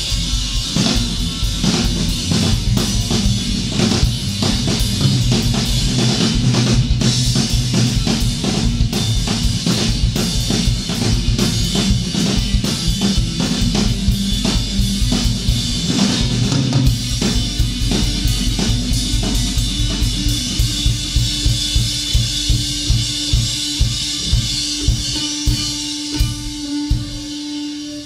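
Live rock jam of drum kit and electric bass guitar: bass drum, snare and cymbals drive a busy rhythm under fast bass-guitar lines. Past the middle the bass drops back and the drums play a string of evenly spaced strikes over a held note.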